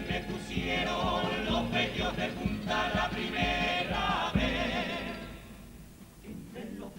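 A Cádiz carnival comparsa choir singing together in harmony over steady drum beats. About four and a half seconds in, the singing and drum drop back to a quieter, thinner passage.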